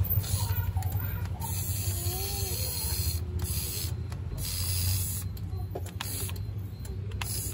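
Toyota Kijang Kapsul power window motor, fitted with new carbon brushes, driving the bare window regulator up and down through its freshly greased sector gear with a steady hum. Its high whir drops out briefly a few times near the middle.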